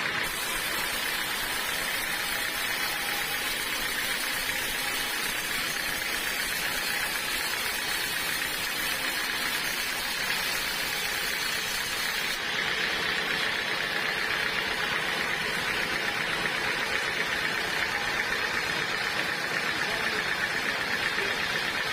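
Bandsaw sawmill running steadily, its engine and blade making an even mechanical noise while sawing teak. The high hiss drops away abruptly about halfway through.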